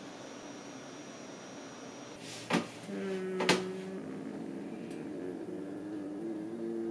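Two sharp clicks about a second apart, then a person humming a few low held notes through closed lips, each note at a steady pitch.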